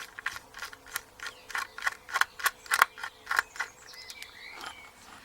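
A rapid, irregular run of small sharp metal clicks, about a dozen in a few seconds and densest in the middle, from a screwdriver working the Torx (star-drive) screw out of an Assa Ruko 2 padlock.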